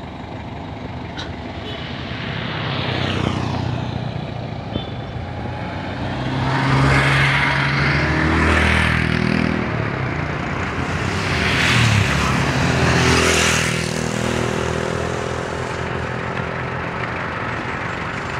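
Loaded Mitsubishi L300 pickup on the move, its engine revving up and easing off several times, with the loudest surges about 7 and 12 seconds in.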